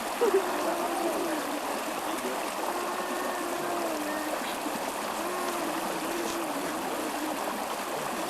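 Steady rush of running water from a stream, with faint distant voices underneath and a short knock just after the start.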